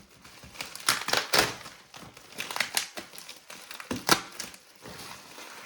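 Mail packaging being torn and pulled open by hand: irregular crinkling, rustling and tearing, with the sharpest rip about four seconds in.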